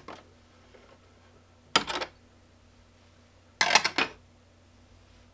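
Metallic clinks and rattles as the hold-down clamps are loosened and a 3 mm aluminium bar is lifted off the CNC bed, in two short clusters about two seconds in and again near four seconds.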